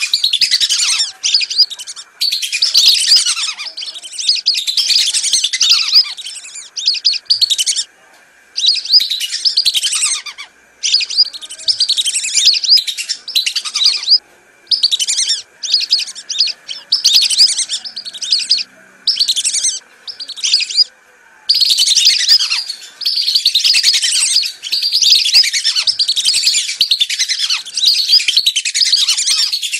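Whistling ducks calling as a flock, a lure-call recording: many high, thin whistles overlapping densely, breaking into separate short bursts with pauses about a quarter of the way in, then crowding together again for the last third.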